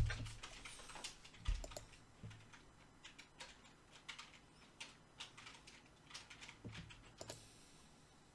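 Keyboard typing: sparse, irregular light key clicks, about one or two a second, with a soft thump near the start and another about a second and a half in.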